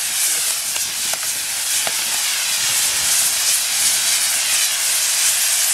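Spinning ground-fireworks wheel, its many burning fire drivers hissing loudly and steadily, with a few faint crackles.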